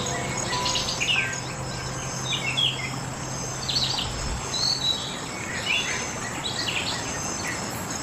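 Many songbirds chirping and calling in short phrases over a steady insect hum, a forest bird-and-insect soundscape. A soft, held low music note sounds under it and fades out about halfway through.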